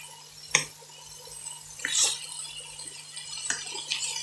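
A wooden spatula stirring pork, broccoli and carrots in a wok, scraping and knocking against the pan over a steady sizzle. A sharp knock about half a second in is the loudest sound, with a few lighter knocks and scrapes later.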